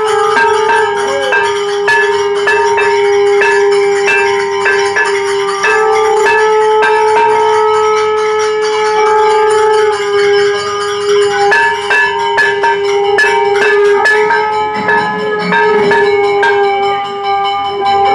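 Temple bells rung rapidly and without pause during a Hindu aarti, a dense clanging over a steady ringing tone that holds throughout.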